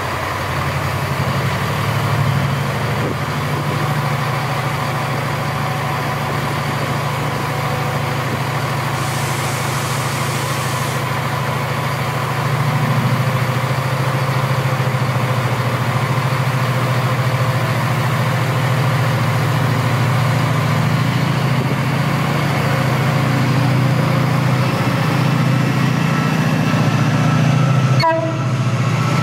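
Diesel multiple-unit train engines idling at the platform: a steady low hum that grows louder about twelve seconds in, then breaks off suddenly just before the end.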